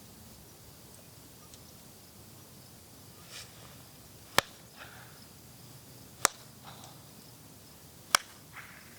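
Three sharp knocks or cracks about two seconds apart, each followed by a short, softer rustle.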